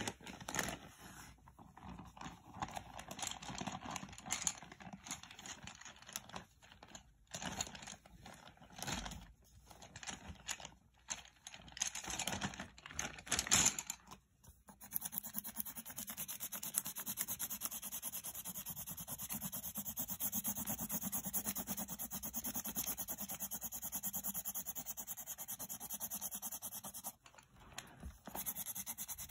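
Paper sheets being handled and shuffled, with irregular rustles and scrapes, then from about halfway a coloured pencil shading on paper in quick, steady back-and-forth scratching strokes, which break off briefly near the end.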